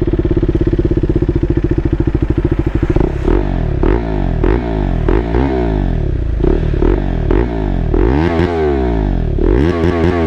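KTM Duke 390's single-cylinder engine, breathing through an Austin Racing aftermarket exhaust, idling with a fast, even beat just after starting, then blipped up and down repeatedly from about three seconds in. The exhaust note is quite bassy.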